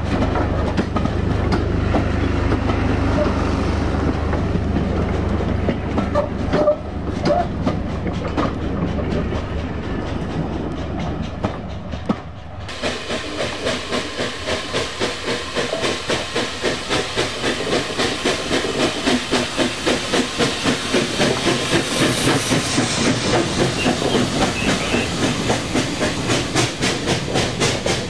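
Steam tank locomotive and its coaches running along the track, wheels clattering over the rail joints. About twelve seconds in the sound cuts to the locomotive coming near with a steady rhythmic beat, then its coaches rolling close by.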